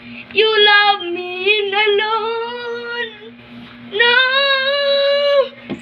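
A young girl singing in a high voice: short sliding phrases, then a long held note near the end. A steady low hum runs underneath.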